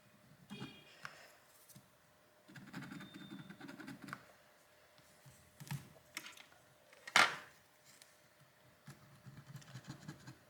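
Small flat screwdriver scraping and tapping at leftover adhesive around a phone's rear camera recess: irregular clicks and short scraping passes, with one sharper click about seven seconds in.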